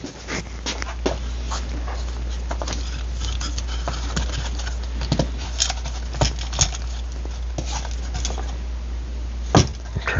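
Drill press motor running with a steady low hum, with scattered light clicks and taps of metal parts being handled and a few sharper knocks.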